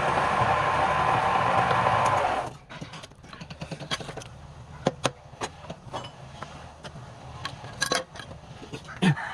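Wood lathe running with a steady noise that cuts off sharply about two and a half seconds in, followed by scattered light clicks and knocks and a short, loud low sound that slides down in pitch near the end.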